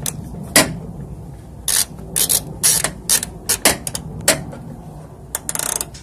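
Socket ratchet clicking in short, irregular strokes, with a quick run of clicks near the end, as it tightens the nuts holding a replacement door check assembly inside a van door.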